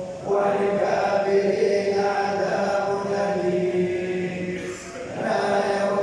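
Quran recitation chanted by men in a long, sustained melodic line. Short breath pauses come just after the start and again about five seconds in.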